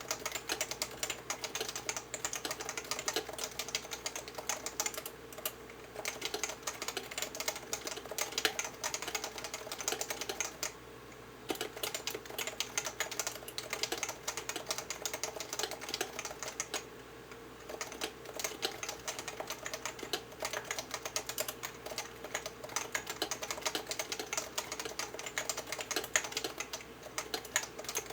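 Typing on a Leopold FC660C keyboard with 45 g Topre electrostatic capacitive switches, not yet lubricated: a fast, continuous run of keystrokes with two short pauses, about eleven and seventeen seconds in.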